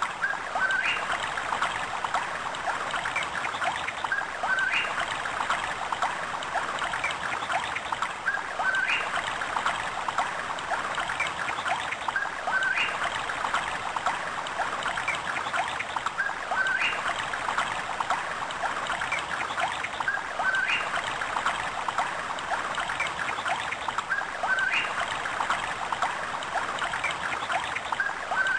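Looped nature ambience: a steady trickling, running-water sound with a short bird-like chirp that comes back at even intervals about every four seconds.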